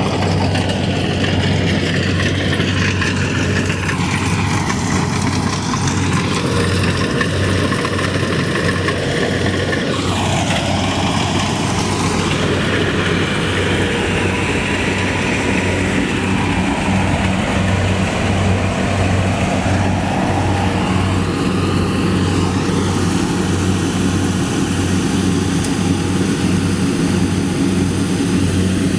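Engine of a rice-harvesting machine running steadily, a continuous low hum with an even pulse throughout.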